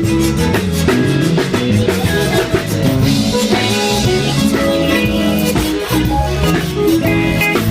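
Live zydeco band playing a dance tune, with guitar, bass and drum kit keeping a steady beat.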